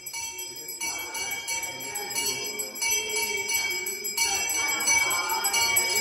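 A small temple hand bell rung rapidly and without pause during a puja, its bright ringing tones growing louder; a voice chanting comes in faintly about four seconds in.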